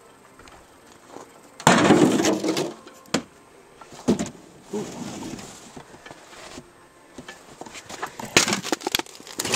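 Steel target plate and debris being handled: a loud scrape about two seconds in, then scattered sharp knocks and clinks.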